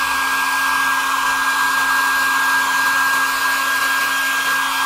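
Handheld hair dryer running steadily on a damp paper cooling-towel sheet: an even rush of air with a thin, steady high whine over it.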